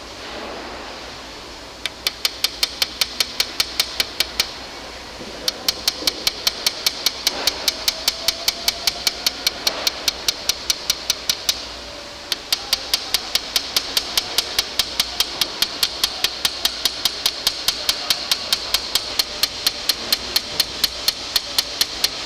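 Light hammer rapidly tapping the end of a punch held in a vise, about five or six sharp ringing strikes a second in long runs, with two brief pauses. The strikes are hand peening at an angle, cold heading the metal outward to form the punch's head.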